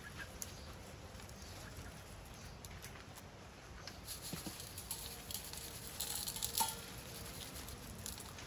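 Faint, light pattering and small clicks as garnish, basil leaves and a crushed seed topping, is sprinkled over a tray of fried chicken feet. The clicks are busiest from about four to seven seconds in.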